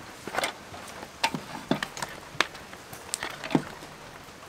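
Wood fire crackling, with about six sharp, irregular pops as the burning wood throws sparks.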